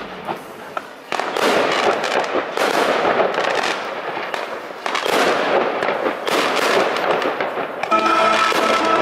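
Fireworks going off: a dense crackling hiss with repeated launches about every second or so, after a quieter first second with a few small pops. Music comes back in about a second before the end.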